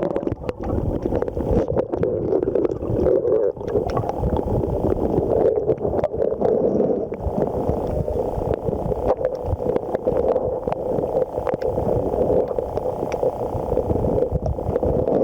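River water heard through a waterproof camera held underwater: a muffled rushing and gurgling of the current, with many small clicks and knocks.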